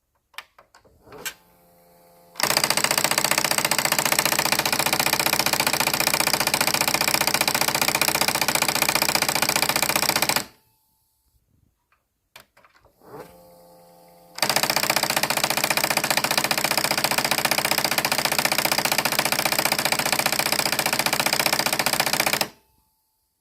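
1997 RCA four-head VCR being switched on, with a VHS tape stuck inside. A few clicks and a brief motor whir give way to a loud, rapid drilling rattle that lasts about eight seconds and stops abruptly. The cycle repeats about four seconds later.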